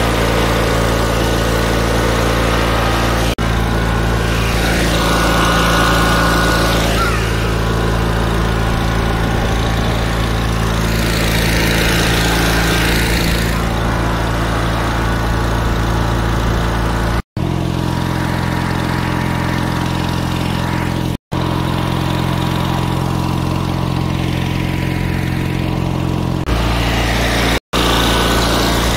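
An 18 hp Briggs & Stratton twin-cylinder lawnmower engine drives a jon boat through a 40 hp Mercury outboard lower unit, running steadily under way, with its exhaust led down into the water. The sound breaks off for a moment three times in the second half.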